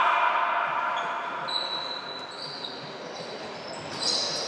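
Echoing sports-hall noise of an indoor game, with high squeaks from players' shoes on the court floor through the second half.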